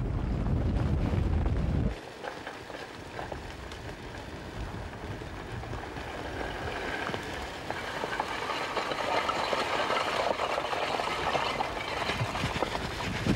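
Advancing lava flow crackling and clattering as it burns into vegetation, a dense run of short clicks that grows louder toward the end. For about the first two seconds a low rumble sits under it, then cuts off abruptly.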